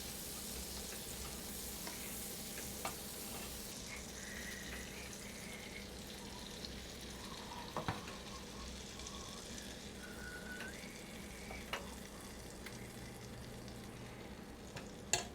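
Pancake batter frying in butter on the hot griddle plate of a Ninja Foodi Griddle Grill: a steady sizzle, stronger for the first few seconds, with a few light clicks.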